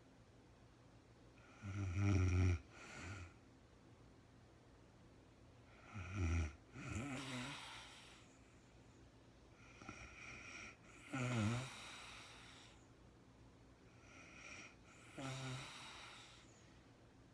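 A woman snoring in her sleep: four snores, one about every four to five seconds, each a short low snore followed by a longer breathy exhale.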